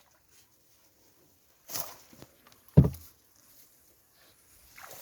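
A brief swish, then about a second later a single heavy thump.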